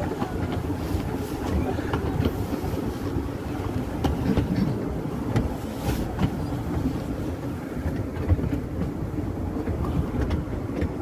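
Train on the 15-inch narrow-gauge line running slowly past another train: a steady low rumble of wheels on the rails, with scattered faint clicks.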